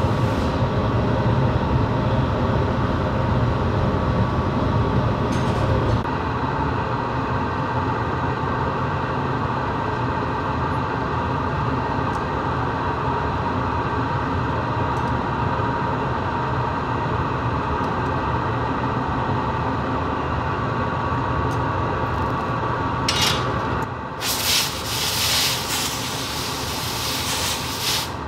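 Steady roar of a glassblowing furnace's gas burner, heavy and low for about the first six seconds, then easing to a lighter steady hum. In the last few seconds, rough scraping rubs of metal on metal and glass as the blowpipe is rolled on the bench and the hot glass is worked with jacks.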